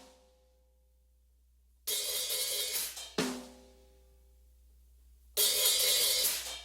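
Opening of an art-punk song: bursts of cymbal and drum noise about a second long, each cut off by a sharp hit that leaves notes ringing. Between the bursts there are near-quiet pauses, and each burst is louder than the one before.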